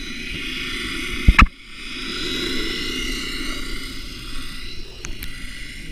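Muffled underwater noise picked up by a camera in its waterproof housing: a steady hiss and low rumble, with a sharp double knock about a second and a half in.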